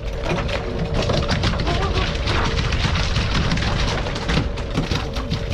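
Wind buffeting the microphone on an open boat at sea: a rough, loud low rumble with rapid knocks through it and a faint steady hum underneath.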